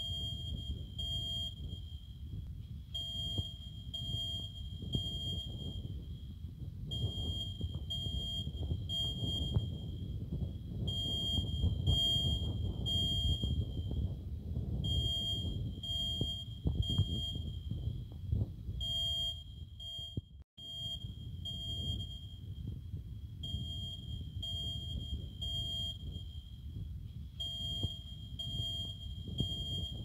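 Ceiling smoke alarm sounding its high-pitched beep in repeating groups of three, one group about every four seconds: the temporal-three evacuation pattern. A low rumble runs underneath, and the sound cuts out for a moment about twenty seconds in.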